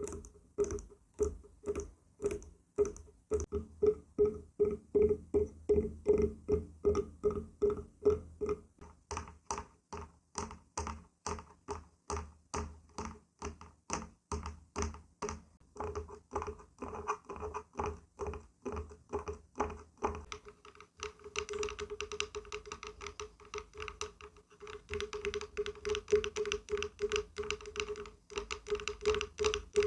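Fingers or fingernails tapping on wood in a steady rhythm, about two to three taps a second, each tap with a short hollow ring. From about 21 seconds in, the tapping gets faster and denser.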